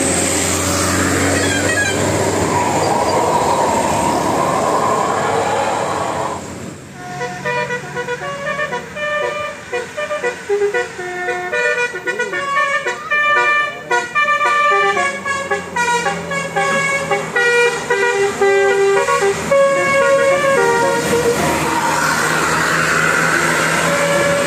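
A vehicle's musical horn tooting a tune of short, stepping notes for about fourteen seconds, between stretches of steady traffic and engine noise.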